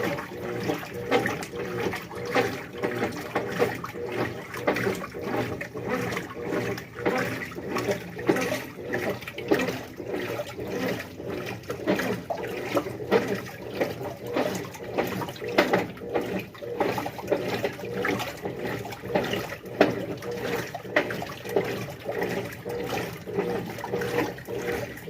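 Brastemp washing machine running in its wash cycle: water churning and sloshing in the tub in quick, irregular surges over a steady motor hum.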